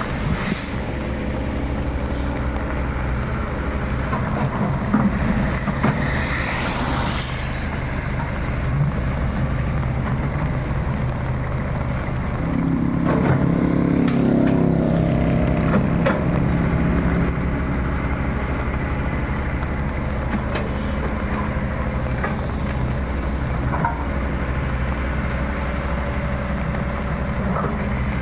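Diesel excavator engine running steadily, pulling harder for several seconds around the middle, with scattered knocks and clanks.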